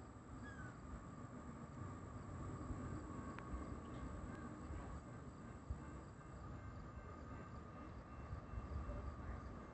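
Quiet trackside ambience: a faint low rumble with steady, thin high-pitched tones over it.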